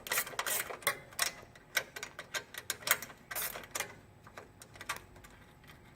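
Irregular light metallic clicks and taps from a wrench and bolt hardware being worked as the brake stay bolt is unscrewed and taken off. The clicks thin out after about four seconds.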